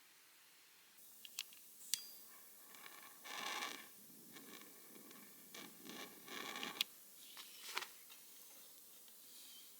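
Camping gear being handled up close: a few small clicks, then scratching and rasping scrapes, with a sharp click about seven seconds in.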